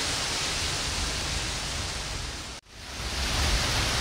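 Heavy rain falling, a steady hiss with no pauses. The sound cuts out suddenly about two and a half seconds in and fades back up within half a second.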